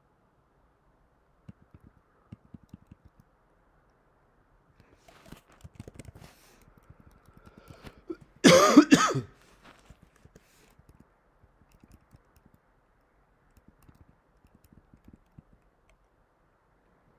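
Soft computer-keyboard typing in short runs, broken about halfway through by one short cough, the loudest sound.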